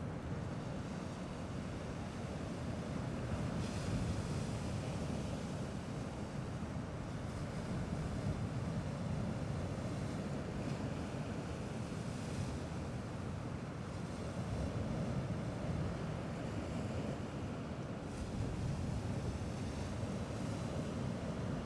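Gentle sea waves washing steadily against the shore, with a few brief brighter surges of hiss, under a low wind rumble.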